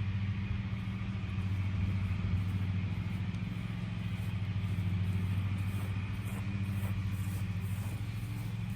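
An engine running steadily at one speed throughout.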